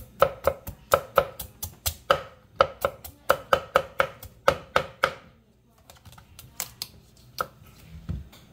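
Kitchen knife slicing through raw squash, the blade tapping the wooden cutting board in a quick run of about four cuts a second. The cutting stops about five seconds in, and a few single cuts follow.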